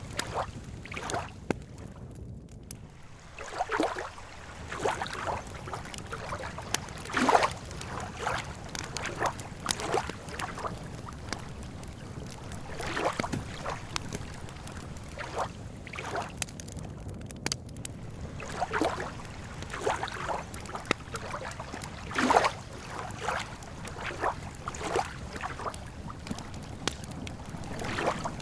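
Lake water lapping against the shore in small irregular splashes and gurgles, one every second or two, over a steady low background.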